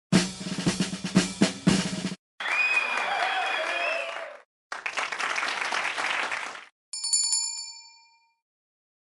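Closing sound-effect sequence: a snare drum roll ends about 2 seconds in, followed by two short bursts of crowd cheering and applause. Near the end a single bell ding rings out and fades.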